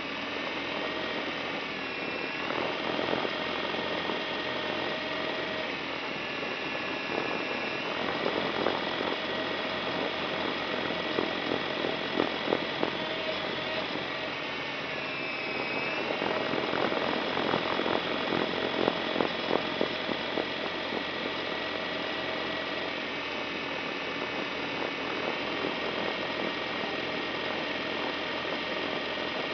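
Quadcopter drone's electric motors and propellers whining steadily, heard through a camera mounted on the drone; the pitch of the whine dips and rises as the motors change speed about two seconds in and again about halfway. Irregular crackling and rattling comes through in the middle stretch.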